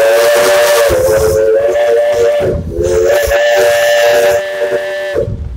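Steam locomotive's three-chime whistle blowing two long blasts, the second beginning about two and a half seconds in, with steam hiss over the chord.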